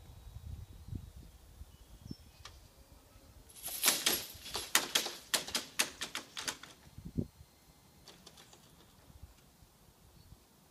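Level-crossing barrier booms coming to rest: a burst of rattling metallic clatter about three seconds long, loudest at the start and dying away, then a single low thud.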